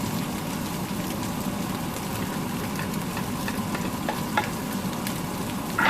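Ground beef with freshly added garlic sizzling in a frying pan as it is stirred, a steady frying hiss with a couple of sharp clicks against the pan, the last near the end.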